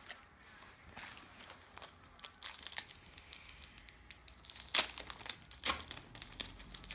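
A trading card pack's wrapper being torn open and crinkled by hand, a run of irregular crackles with two loud sharp crinkles about five and six seconds in.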